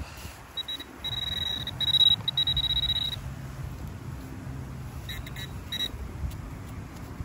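Handheld metal-detecting pinpointer alerting on a metal target: a high continuous tone for about two and a half seconds as it probes the dirt, then a few quick beeps about five seconds in as it is passed over a handful of soil.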